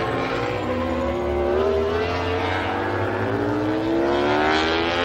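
Repsol Honda RC213V MotoGP bike's V4 engine revving through a corner. The engine note rises, dips about halfway through, then climbs again as the bike accelerates.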